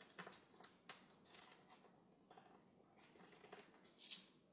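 Faint clicks and scratching of a small screwdriver backing out the little corner screws that hold a laptop's LCD screen frame, with a louder scrape about four seconds in.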